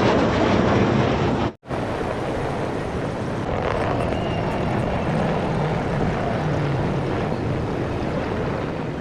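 Military aircraft flying over the crowd: a loud, steady rushing engine noise. It drops out for a moment about a second and a half in, then goes on just as steadily.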